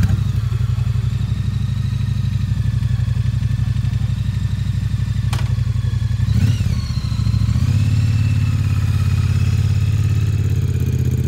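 Triumph parallel-twin motorcycle engine idling with an even, low pulse just after being started. About six and a half seconds in, a quick blip of the throttle makes the pitch rise and fall, and the engine then settles into a slightly faster, louder idle.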